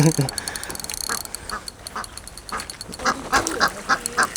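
Ducks quacking: a run of short calls that come thicker and faster from about three seconds in.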